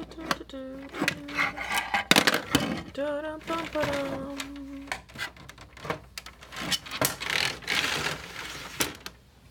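Hard plastic dolls and dollhouse pieces clicking and knocking as they are handled, with a voice humming a few held, wavering notes twice in the first half and a hissing noise a few seconds before the end.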